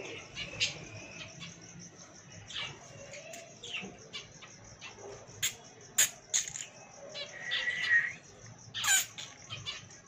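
Pigeons moving about in a wire-mesh coop: a few sharp wing claps and flutters about five to nine seconds in, among faint high chirping.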